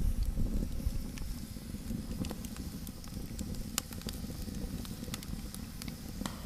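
Small fire burning under a kettle: a steady low rumble of the flame with scattered sharp ticks and crackles.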